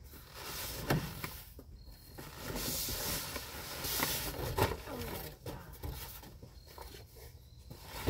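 Rustling of craft items and their packaging being handled, with light knocks and clicks.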